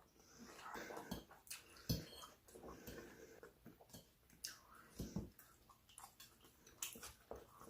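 Eating sounds close to the microphone: faint chewing with irregular clicks and smacks.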